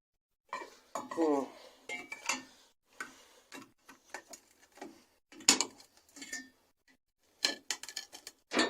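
Irregular clinks, clicks and knocks of hard objects being handled and struck, with a sharp knock about halfway through and a quick cluster of clicks near the end.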